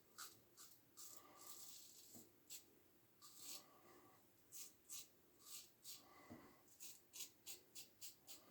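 Faint scraping strokes of a Gem push-button single-edge safety razor cutting lathered stubble: short strokes one after another, coming quicker in the last couple of seconds.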